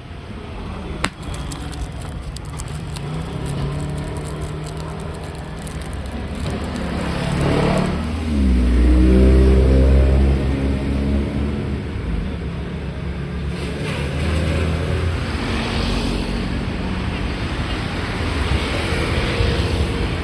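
A motor vehicle's engine running, its note sweeping in pitch about seven seconds in and then loudest and deepest for a couple of seconds.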